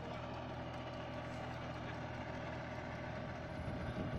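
Compact tractor engine running steadily while pulling a two-bottom plough through heavy soil, a constant hum that turns a little rougher near the end.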